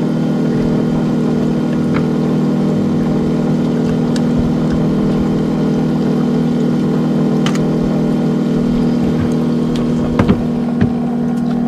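A small fishing boat's engine running steadily with an even hum, and a few light clicks and knocks from handling the catch.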